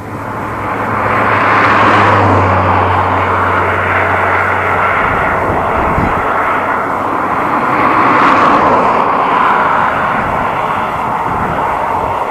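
Road traffic passing close by: engine and tyre noise that swells and fades twice, with a low engine drone that fades out about halfway through.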